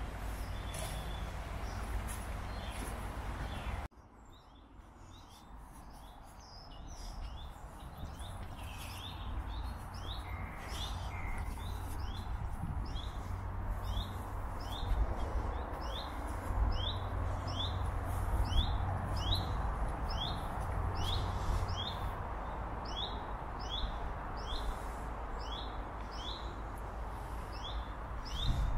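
A small bird calling over and over, a short high chirp about twice a second, starting about nine seconds in and running on steadily. Before that there is a steady outdoor rumble that drops away suddenly about four seconds in.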